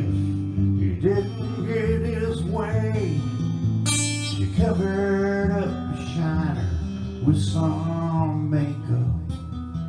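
Acoustic guitar in open C tuning, played as a song with ringing low notes and changing chords, with a voice singing over it in stretches without clear words.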